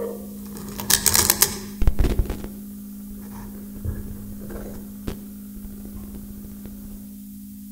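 Electroacoustic free improvisation on tabletop guitar and electronics: a steady low electronic hum with scattered clicks and scrapes, and a short burst of hissing noise about a second in.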